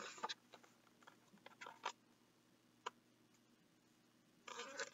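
Near silence, with a few faint clicks and a soft rustle near the end from a hardcover picture book being held up and handled.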